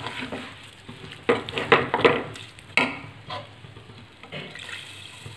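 A metal spatula scraping and stirring thick, grainy besan halwa in a metal kadhai, several quick strokes in the first half and fewer, quieter ones after, with a light frying sizzle under them.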